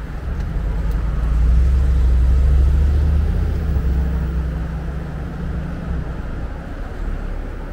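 A motor vehicle passing close in traffic: a low engine rumble that swells about a second in, is loudest for a couple of seconds, then fades away over the next few seconds.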